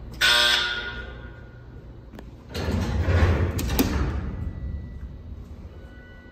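Freight elevator at a landing: a sudden ringing tone that dies away over about a second, then a heavy door or gate sliding with a low rumble and a sharp clack partway through.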